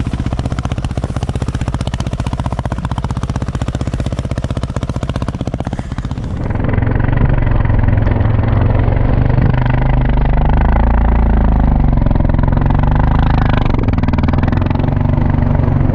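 Snow bike's dirt-bike engine (a dirt bike fitted with a Timbersled track kit) running at a steady, even idle. About six seconds in, the engine turns louder, running under load with rising and falling revs as the bike ploughs through deep powder.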